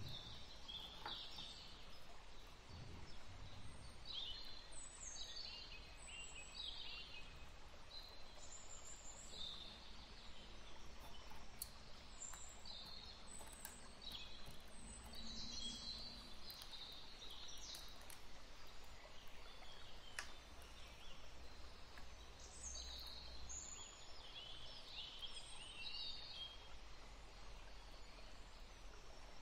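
Small birds chirping faintly, short calls sweeping downward every second or two, over a faint steady low hum.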